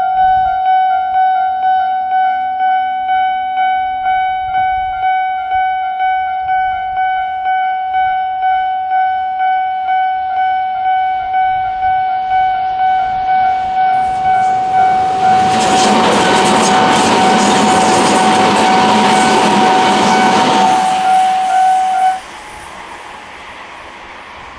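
Japanese railway level-crossing warning alarm ringing: a shrill electronic ding repeating a little under twice a second. A Tobu Nikko Line train rushes through the crossing from about 15 seconds in to about 21 seconds in. The alarm cuts off abruptly about 22 seconds in.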